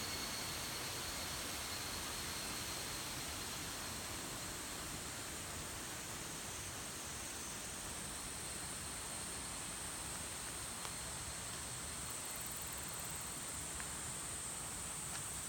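Steady rush of a flowing brook, with a thin, steady high-pitched whine above it that grows stronger near the end.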